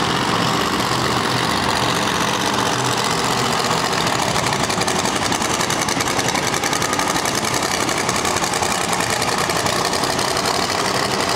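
Monster truck engine running loud and steady.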